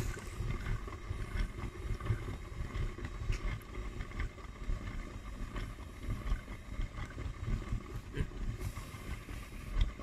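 Hotpoint front-loading washing machine with its pressure switch removed, its drum turning through a tub overfilled with sudsy water: a low churning slosh of water with a faint steady motor whine. Without the pressure switch the machine cannot sense the water level, so the tub is flooded with water and foam.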